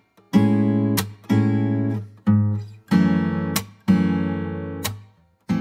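Music: acoustic guitar strumming chords, a strum roughly every second, each chord ringing out and fading.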